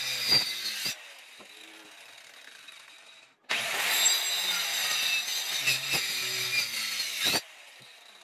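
Handheld electric circular saw cutting into a wooden beam, a motor hum under the rasp of the blade in the wood. One cut ends about a second in; after a quieter pause a second cut starts abruptly and runs for about four seconds before stopping.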